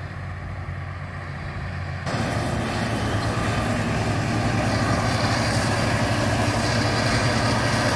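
Diesel engine of a Caterpillar wheel-tractor scraper running steadily; the engine sound steps up suddenly about two seconds in, becoming louder and closer.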